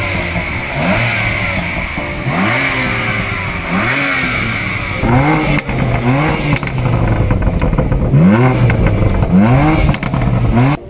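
BMW M2's turbocharged straight-six being revved in quick blips, about eight of them, each rising and falling in pitch and dropping back to idle in between.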